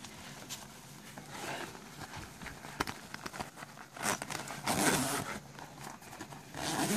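Felt backpack being handled and shifted about, its fabric and zipper rustling and scraping in uneven bursts, loudest from about four to five seconds in and again near the end.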